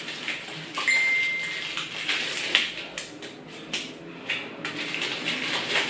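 A bag-wrapped package being handled and unwrapped: crinkling and rustling with irregular clicks and taps, and a brief steady high tone about a second in.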